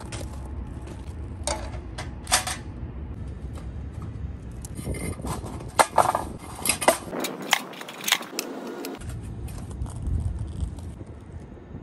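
Footsteps crunching on gravel, then a run of metal clinks and knocks as sheet-metal stove parts and pieces of split wood are handled and dropped into a metal rocket stove, over a steady low rumble.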